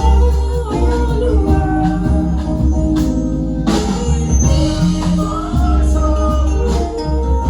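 Choir singing a gospel anthem over a live band, with a strong bass line and frequent percussion hits.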